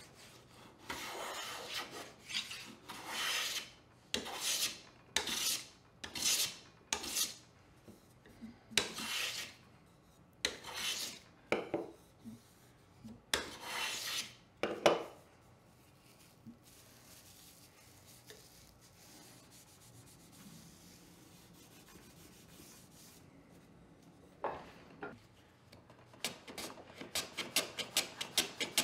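Metal hand plane taking shavings off a board, about a dozen separate strokes of roughly half a second each, each a hissing scrape. After a quiet pause, a quick run of short, rapid strokes starts near the end.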